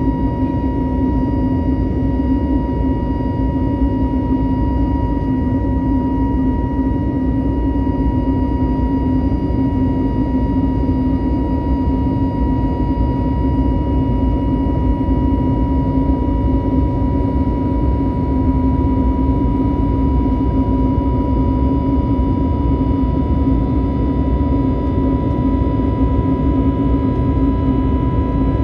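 Jet airliner cabin noise during the climb after takeoff: a steady, loud rumble of engines and airflow with a constant low hum and a clear high whine tone over it.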